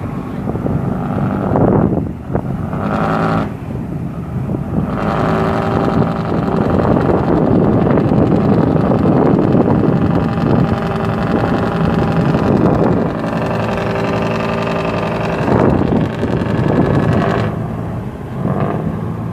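A boat's engine running steadily over water and wind noise. It is louder through the middle stretch and eases near the end.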